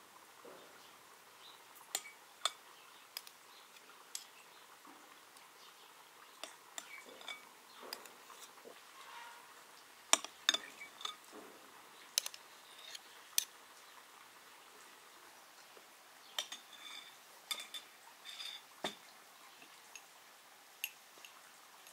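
Metal spoons clinking against each other and against a glass bowl and baking dish as cream is spooned out: scattered light clinks and taps, with a cluster of sharper ones around the middle.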